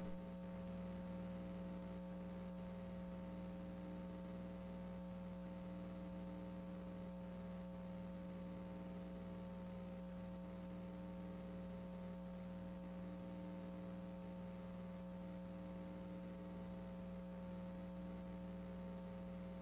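Steady electrical mains hum: several held tones at an even low level, with no other sound.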